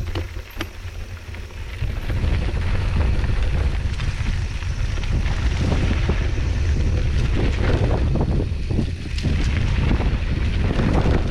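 Wind buffeting the microphone of a mountain bike ride on a dirt trail, with the bike rattling and knocking over rough ground. The rush and rattle grow louder about two seconds in.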